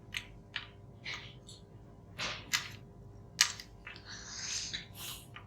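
Scattered light clicks and taps of handling as a multimeter's probes are worked over a circuit board, with a soft rustle about four seconds in, over a faint steady hum.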